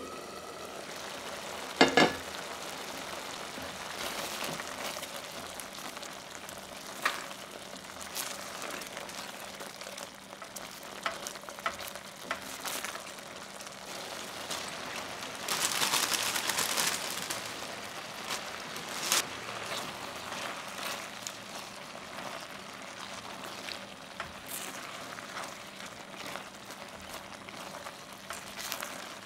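Butter bean and cherry tomato stew simmering with a steady bubbling hiss in a stainless steel sauté pan. About two seconds in, the glass lid gives a loud, ringing metallic clink as it comes off. Scattered clicks of a utensil against the pan follow, and there is a louder stretch of stirring midway, as spinach is stirred into the stew near the end.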